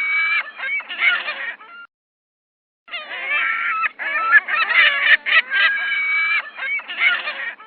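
Seagulls calling: a run of loud, harsh cries, breaking off for about a second and then starting again in a longer run.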